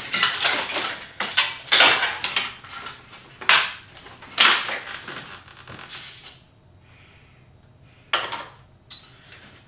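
Hand tools and metal car parts being handled, clinking and clattering in a series of separate bursts: busy for the first six seconds, then two more near the end.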